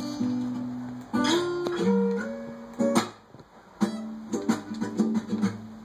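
Acoustic guitar strummed, chords ringing out, with fresh strums about a second in and again around three and four seconds.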